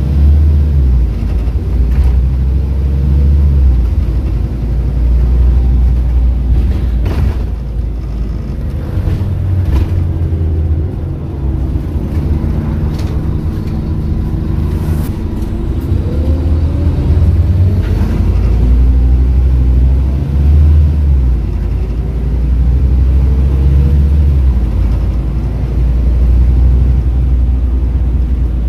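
Scania N230UD double-decker's five-cylinder diesel engine, heard from inside the bus while it drives. The engine note rises and falls repeatedly as the bus accelerates and the ZF automatic gearbox changes gear, with a few sharp knocks or rattles from the body.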